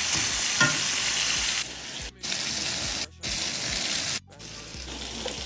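Chicken frying and sizzling in a hot pan, heard in four short stretches that each cut off abruptly.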